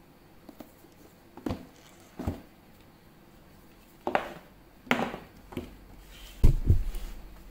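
Handling noises while unboxing a tablet: a series of separate knocks and taps on the box and packaging, with the loudest a low thump about six and a half seconds in.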